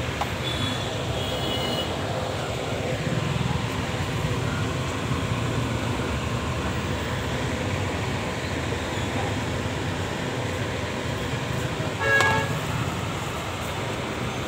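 Steady street traffic rumble, with a vehicle horn honking once, briefly, about twelve seconds in.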